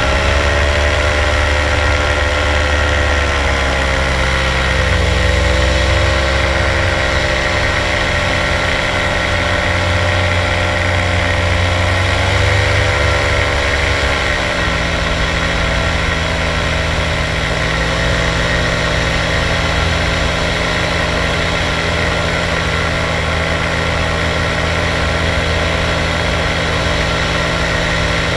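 Microlight aircraft engine running in flight, a steady drone whose pitch rises and dips a few times, then drops about 15 seconds in and holds steady.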